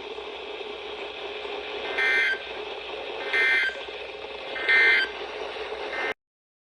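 Three short bursts of EAS end-of-message data tones (the SAME warbling digital squawk), about a second and a half apart, over steady radio hiss; the audio cuts off to silence shortly before the end.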